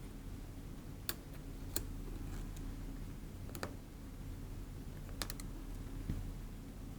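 Small sharp clicks of iPhone 6 Plus display flex-cable connectors being pried off the logic board with a plastic spatula, about six scattered clicks over a faint steady hum.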